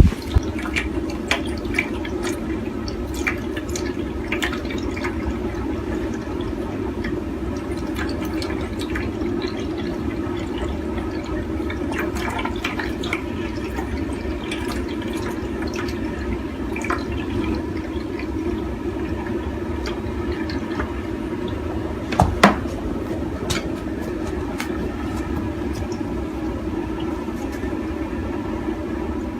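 Steady running water splashing into a basin, with many small irregular clicks and drips as a caracal laps at it. There is one sharper knock about two-thirds of the way through.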